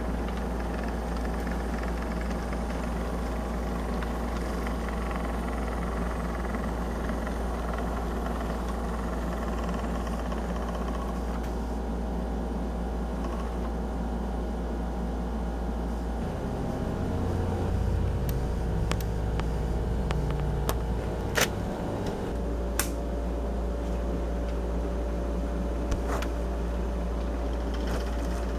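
HO-scale model train running along the layout track: a steady electric motor and wheel hum, with a few sharp clicks from the wheels over the track in the second half.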